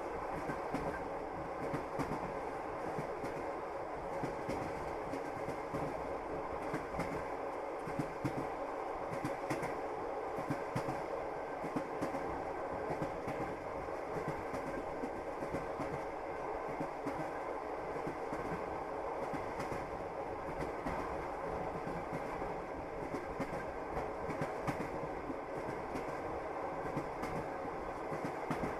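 Train wheels clattering over the rails with the steady rumble of a moving railway carriage, and many small sharp clicks and rattles spread through it.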